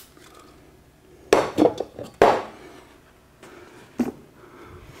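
Sharp metallic clinks and knocks with brief ringing, from tools and a spray can being handled on a steel workbench: a quick cluster of four about a second and a half in, then one more knock near the end.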